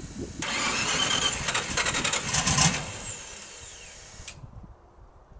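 Starter cranking the 320 cubic inch Buick straight-eight without it firing, to fill the fuel injectors before it will start. The whine starts about half a second in, falls in pitch as it winds down, and stops about four seconds in.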